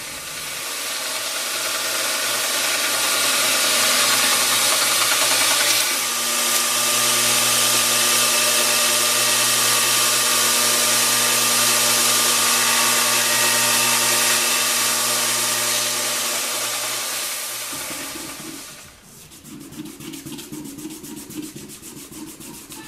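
Homemade 2x72-inch belt grinder running with the steel blade of an old meat cleaver pressed against the belt: a loud, steady grinding hiss over the motor's hum. The grinding stops at about 18 seconds. It is followed by quieter, quick back-and-forth rubbing of sandpaper by hand on the blade near the end.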